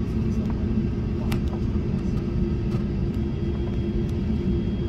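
Cabin noise inside a taxiing Airbus A350-900: a steady low rumble with a constant hum from the idling Rolls-Royce Trent XWB engines and cabin air, with a few faint clicks.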